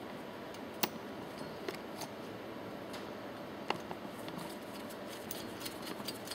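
Small metallic clicks from nuts being threaded by hand onto the air-chamber bolts of a Track C1 piston pump: two sharp clicks about a second in and near four seconds, then a run of lighter ticks near the end, over a steady background hiss.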